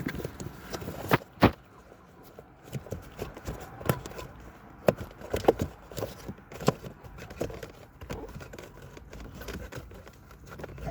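Hands working at the cabin filter housing: scattered sharp plastic clicks and knocks with some rustling, the loudest knocks about a second in.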